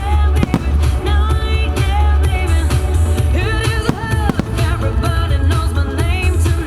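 A song with singing and a heavy bass, played over loudspeakers for a music-synchronised fireworks show (music starmine). A few sharp firework bangs break through the music, near the start and again about four seconds in.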